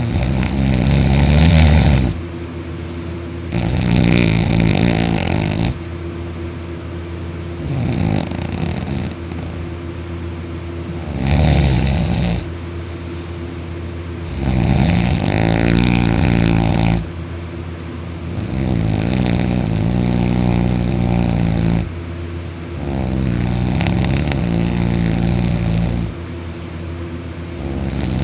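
A person in deep sleep snoring very loudly: a long, rattling snore on each breath, repeating every three to four seconds with quieter breathing between.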